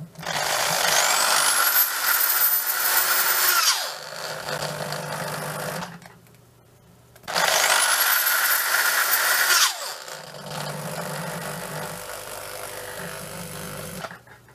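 A 550 W corded electric hand drill is run up twice, each time a whine rising steeply in pitch as the trigger brings it gradually up to full speed, then falling away as it is released and spins down. After the second run-up it keeps running lower and weaker for about four seconds while a hand grips the chuck to brake it.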